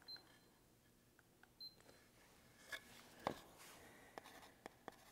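Near silence broken by two short high beeps about a second and a half apart from a laser distance measurer taking readings, then a few faint clicks and taps.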